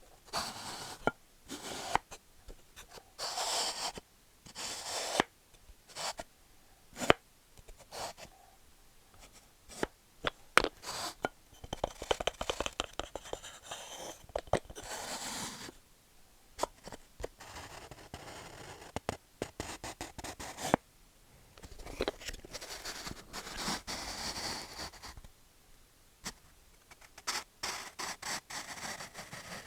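Wood ASMR: fingernails or an object scratching and scraping over wooden surfaces, in passes a second or a few seconds long, with sharp taps and clicks on the wood between them. A couple of the longer scrapes have a fast, ridged rattle, like a surface being stroked across grain or grooves.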